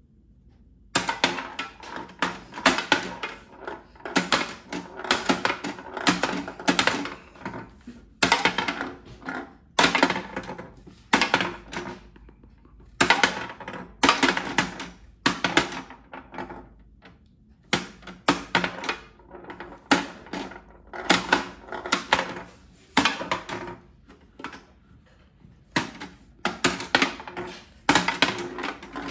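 A 1980s Soviet tabletop mini basketball game being played: rapid plastic clacking of the red player keys, with the small ball knocking about under the clear plastic dome. It comes in flurries of clicks, with short pauses between them.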